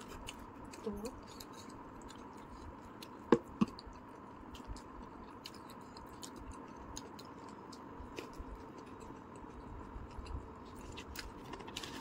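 Quiet chewing of pizza with soft mouth clicks and smacks, and one sharper click about three seconds in, over a faint steady hum.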